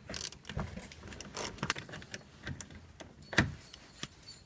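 Irregular metallic clinks and knocks of hand tools at work on the bolts of the lower engine cover. The loudest knock comes about three and a half seconds in.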